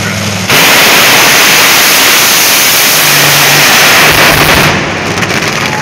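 Drag racing cars launching off the start line and making their run: a sudden, very loud roar about half a second in that overloads the microphone into a harsh hiss for about four seconds, then falls away.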